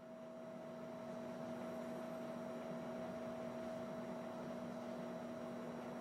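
Electric fireplace-style fan heater running on its 600 W heat setting: a steady hum with an even hiss of blown air, reaching full level within the first second and then holding steady.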